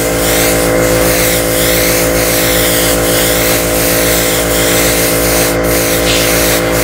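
A small airbrush compressor running with a steady hum, under the hiss of airbrushes spraying a white base coat onto crankbait lures.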